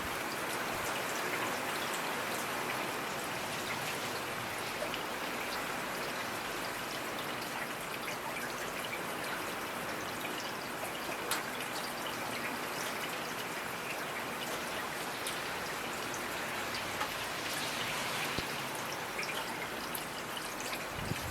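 Steady rainfall, an even hiss of drops with scattered individual drop ticks.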